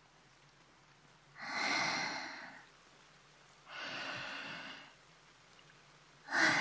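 A woman breathing slowly and deeply close to a binaural dummy-head microphone: two long breaths about two seconds apart, and a third starting near the end.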